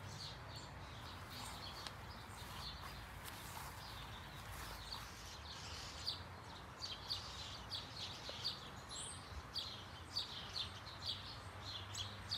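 Small birds chirping: short high chirps that come more often about halfway through, over a faint steady outdoor hum.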